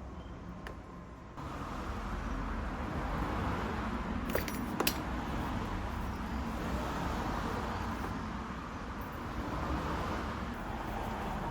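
Light metallic clinks of tools and small parts being handled, two close together about four and a half seconds in, over a steady background rush that steps up abruptly a second and a half in.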